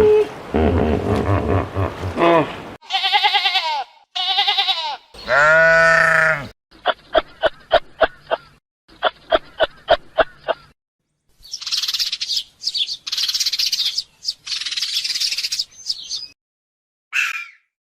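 A string of separate animal calls one after another. Low calls give way to two short bleats with a wavering pitch and a longer one. Then come two runs of rapid, even pulsed calls and a series of high, hissing calls.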